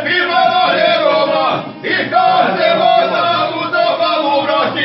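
A man singing with long held notes, accompanied by violin and a plucked long-necked string instrument; the sound breaks off briefly just under two seconds in, then the held notes resume.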